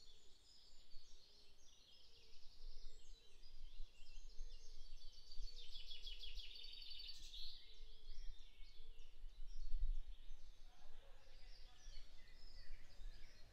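Woodland birdsong: several songbirds singing over one another, with a fast trill about halfway through, over a faint low rumble.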